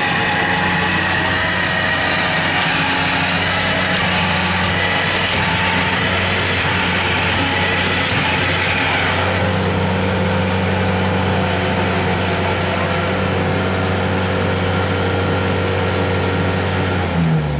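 Rice combine harvester's engine running steadily under a wash of machinery noise, its pitch settling slightly lower about halfway through.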